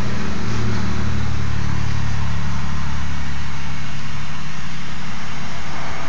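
A steady mechanical drone: a constant hiss with a low hum under it, the hum easing off about four seconds in.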